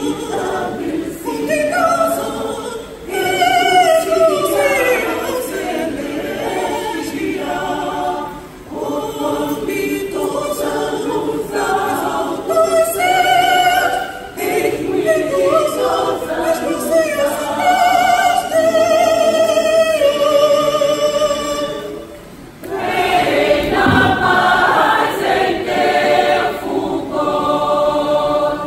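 Mixed-voice church choir singing a hymn in Portuguese, line by line, with short breaks between the phrases.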